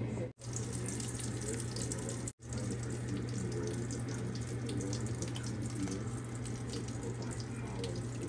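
Water running steadily from a tap into a sink, with a constant low hum underneath. The sound cuts out abruptly twice, near the start and about two seconds in.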